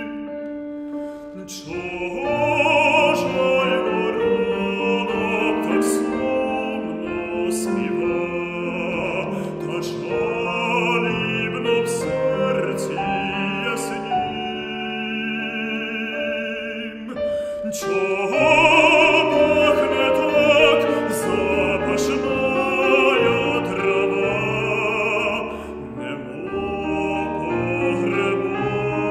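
A male classical voice singing an art song with vibrato, over a grand piano accompaniment. The voice breaks off briefly near the start and again about halfway through, while the piano carries on.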